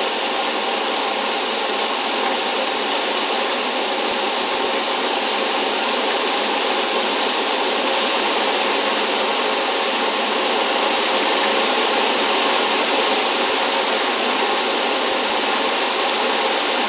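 A small motor running steadily with a constant hiss, unchanged throughout.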